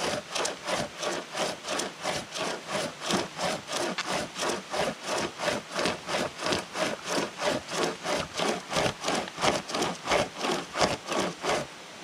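Small hand saw cutting through a fallen log, in quick, even back-and-forth strokes of about three a second, until it stops right at the end.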